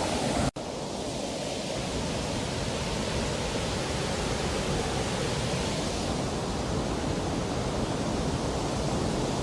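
Steady rushing water pouring over a low creek dam, an even roar with no change, cut off for an instant about half a second in.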